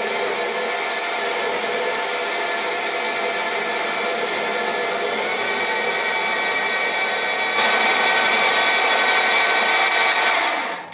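Sieg SC4 mini lathe running at about 600 rpm while a parting tool, driven by the cross-slide power feed, parts off a mild steel bar: a steady motor whine over cutting noise. The cutting gets louder about two-thirds of the way through, and the sound ends abruptly.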